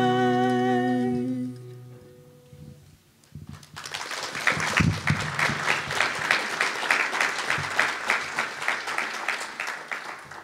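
The last held chord of a song, sung over mandolin and acoustic guitar, dies away over about two seconds. About three and a half seconds in, the congregation starts applauding, and the clapping keeps up for about six seconds before tailing off near the end.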